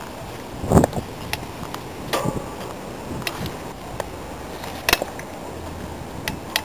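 Steady outdoor background noise with scattered, irregular sharp clicks and knocks. The loudest come about a second in and again around five seconds.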